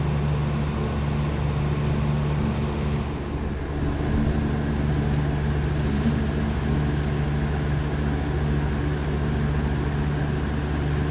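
Trane Odyssey split-system heat pump outdoor unit running steadily, its compressor and fan giving a low hum, with a sharp click about five seconds in and a short hiss just after.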